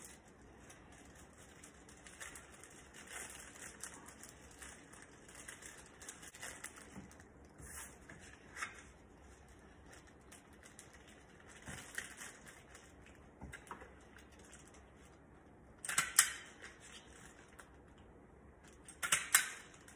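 Faint handling sounds from gloved hands working small metal parts and a tool on a workbench: scattered light clicks and rustles, with louder brief clatters about 16 and 19 seconds in.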